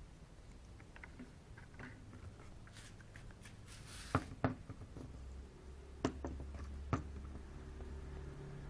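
Parts and tools being handled during washing-machine repair work: scattered light clicks and a few sharp knocks, with a low steady hum coming in about halfway.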